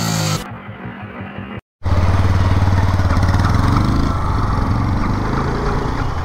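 Background music ends just after the start. After a brief dropout, a motorcycle engine runs loudly and steadily.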